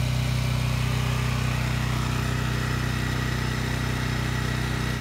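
Small gasoline engine of an earth auger idling steadily, an even hum with no change in speed.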